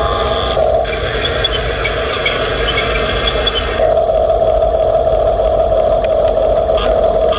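Electric drive motors and plastic gearboxes of a radio-controlled construction model whining steadily. A clicking rattle runs over the whine and drops away about four seconds in, after which the whine is louder.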